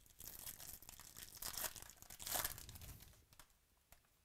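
Foil wrapper of a Topps Chrome baseball card pack being torn open and crinkled by hand, loudest about two seconds in, followed by a few soft clicks near the end.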